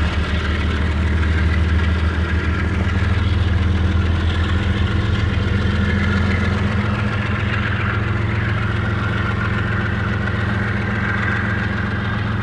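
BNSF GE Evolution-series locomotive's V12 four-stroke diesel, running as a distributed power unit mid-train, working under power with a deep, pulsing engine note that fades a little toward the end.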